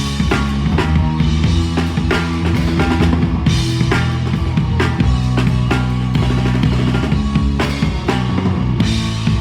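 Live punk rock band playing an instrumental passage with no singing. The drum kit is loud, with regular kick and snare hits, over sustained electric guitar and bass.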